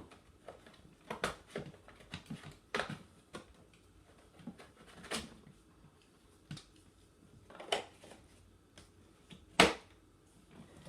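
Scattered plastic clicks and knocks from handling a Hoover Spectrum 800 canister vacuum around its exhaust filter, with one sharper knock near the end.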